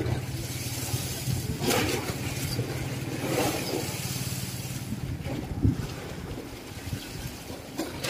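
A fishing boat's engine running steadily with a low hum, which fades after about five seconds, with a couple of swells of wind and water noise over it.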